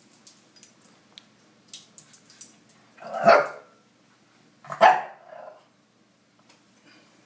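A dog barks twice, about a second and a half apart, after a few faint clicks and scuffs.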